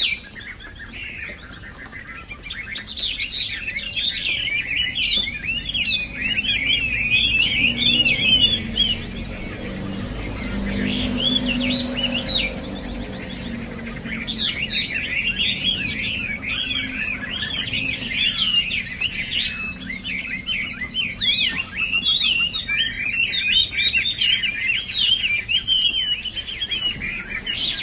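Caged Chinese hwamei (China thrush) singing long runs of rapid, varied whistled phrases, breaking off for a few seconds near the middle before starting up again.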